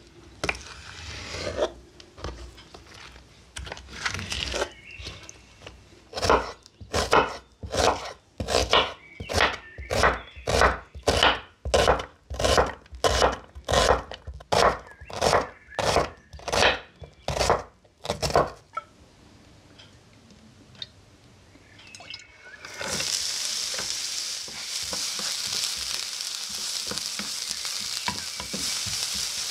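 Kitchen knife chopping onion on a wooden cutting board: about twenty even strokes, a little under two a second. After a short pause, chopped onion frying in a pan with a steady sizzle that starts suddenly, stirred with a wooden spoon.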